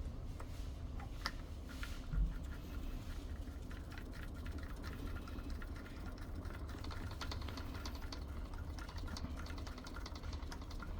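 Small screws being driven by hand into a Kaadas S500 door lock's housing: a run of light clicks and scrapes from the screwdriver and metal parts, with one louder knock about two seconds in.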